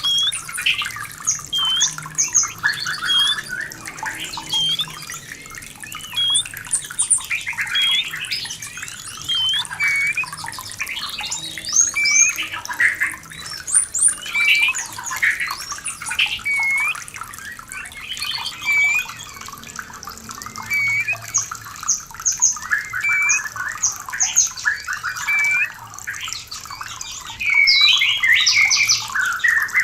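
White-rumped shama (murai batu) in breeding condition giving rapid short hooked chirps and whistles over running water. The calls come thick and fast throughout and grow busier near the end.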